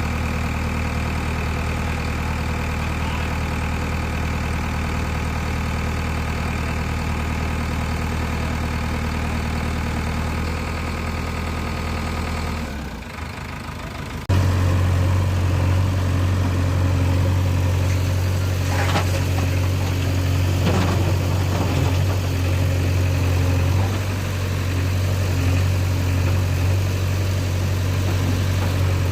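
Diesel engine of a tractor or backhoe idling steadily. About 13 s in it dips briefly, then comes back louder and runs on steadily.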